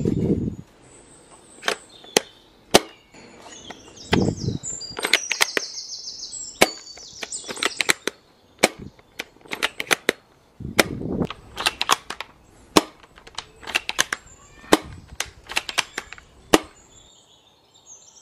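Cheap plastic toy airsoft sniper rifle being cocked with its bolt and fired again and again: a string of sharp plastic clacks and snaps, with a few heavier, deeper clacks of the bolt. Birds chirp in the background.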